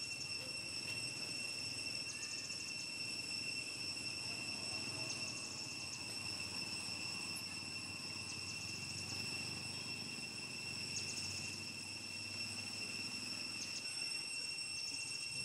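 Insects calling outdoors: a steady high-pitched drone, with a short pulsed chirp repeating about every three seconds, over low background noise.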